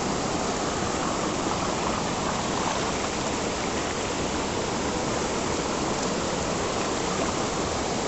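Stream water pouring over a low rock step into a pool: a steady rush of water.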